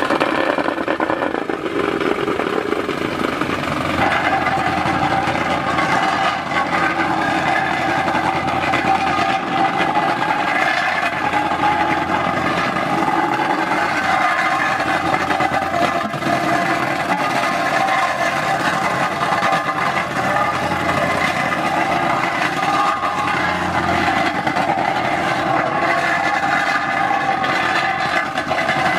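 Vibratory plate compactor running steadily, its small engine and vibrating plate tamping fresh asphalt around a cast-iron manhole cover.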